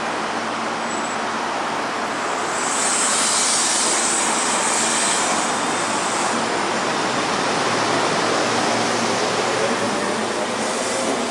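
Electric commuter train pulling out of a station: a rush of hissing noise swells about two and a half seconds in, and from about eight seconds a faint whine from the traction motors rises slowly in pitch as the train gathers speed.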